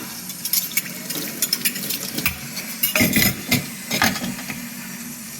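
Water running and splashing with cutlery clattering in a 3D-printed plastic cutlery drainer, a few sharp clinks about three to four seconds in.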